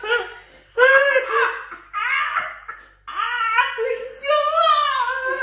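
A woman laughing hard through a mouth guard, in four long high-pitched bursts.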